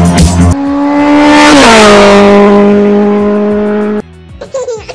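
A motor vehicle passing at speed, its engine note dropping in pitch as it goes by, under a swelling rush of noise. It follows the end of a music track and cuts off abruptly about four seconds in.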